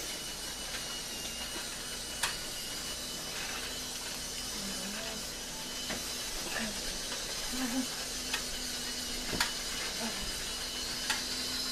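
Battery-powered toy train running around a plastic track: a steady mechanical whir and hiss, with a few sharp clicks spaced irregularly through it.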